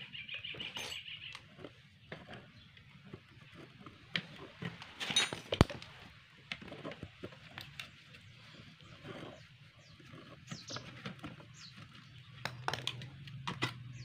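Screwdriver and small steel parts clicking, tapping and scraping on an alternator's metal housing as it is taken apart, in scattered short knocks, with one sharp click about five and a half seconds in. A bird chirps in quick short notes near the start.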